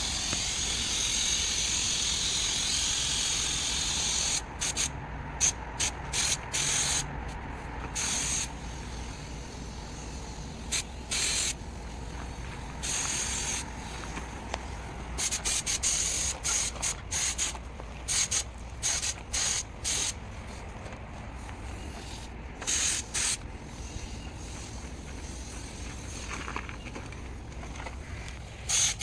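Spray paint hissing from a nozzle: one long continuous spray for about the first four seconds, then many short separate bursts.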